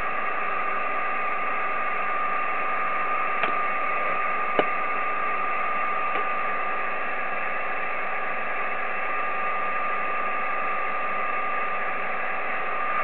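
Icom IC-7300 transceiver receiving on the 10-metre band in upper sideband with no station talking: a steady hiss of band noise and static with a constant steady tone riding on it. Two short clicks come about a second apart, around four seconds in.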